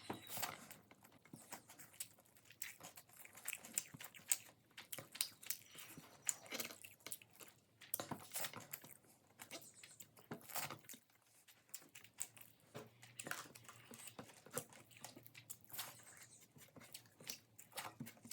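A person chewing and biting food, with many sharp, irregular crunches.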